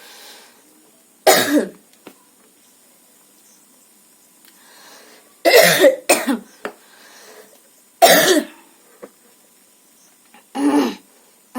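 A woman coughing: about five separate loud coughs with pauses of a few seconds between them, two close together near the middle.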